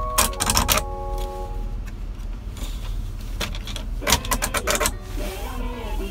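Plastic pull-out cup holder in a Subaru Sambar truck's dashboard clicking and rattling as it is worked by hand, in two bursts of quick clicks, about a second in and again around four seconds in. A steady low hum runs underneath, and the cab radio sounds a few held tones early on and talk or music near the end.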